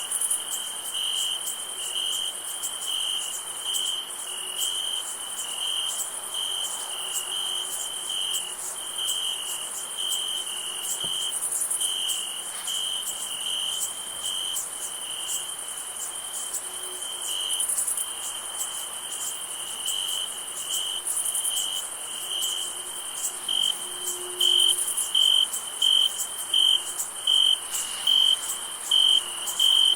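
Crickets chirping on a summer night: one cricket's chirps repeat a little more than once a second and grow louder and more regular near the end, over a steady, higher trill from many insects.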